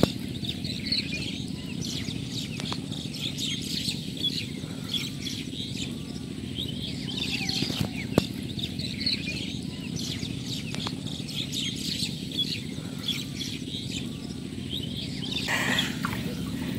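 Small birds chirping busily over a steady low background noise. Near the end, a short burst of water splashing and dripping as the wet fishing net is lifted out of the water.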